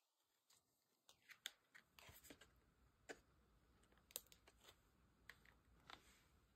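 Near silence, with faint scattered light clicks and paper rustles from fingers handling a rhinestone sheet and pressing rhinestones onto a card.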